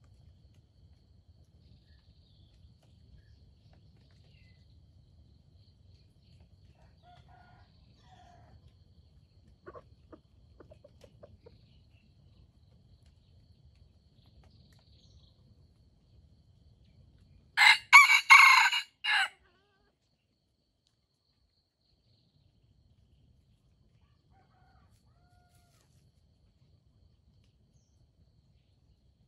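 Red junglefowl rooster crowing once: one short, loud crow of under two seconds, broken into a few quick joined syllables.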